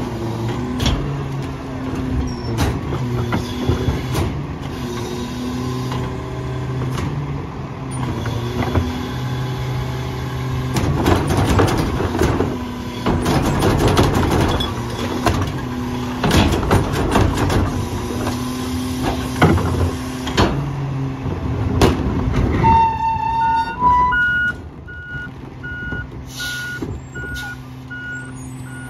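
Freightliner/McNeilus rear-loader garbage truck with its engine running steadily as a cart is tipped into the rear hopper, trash clattering and banging in. Near the end there is a short hiss, then the truck's backup alarm starts beeping steadily.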